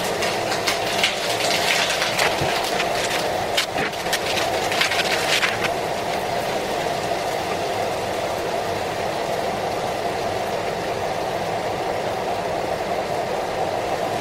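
Paper wrapping of a roll of ready-made pastry crackling and rustling as it is pulled off and unrolled, for about the first six seconds, over a steady mechanical hum.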